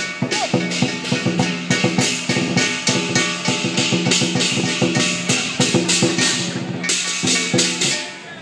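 Lion dance accompaniment: a large Chinese drum beaten in a fast, steady rhythm with clashing cymbals, several strokes a second, over a ringing held tone. It drops away briefly near the end.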